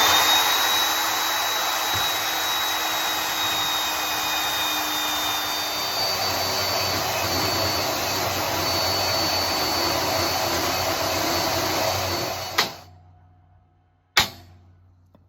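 Electric power tool spinning up with a rising whine, then running steadily at high speed for about twelve seconds before switching off and winding down. A single sharp click follows near the end.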